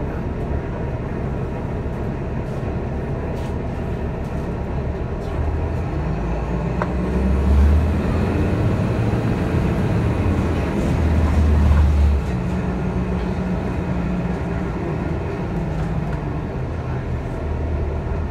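City bus running, heard from inside the passenger cabin: a steady low engine and road rumble. It swells twice, about eight and twelve seconds in, as the engine works harder.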